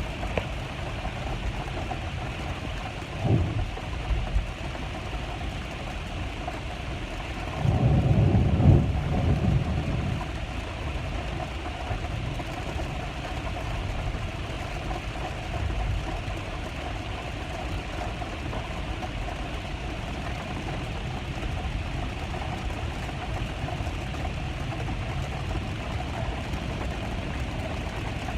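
Rain falling steadily, with a short low rumble about three seconds in and a longer, louder rumble from about eight to ten seconds in.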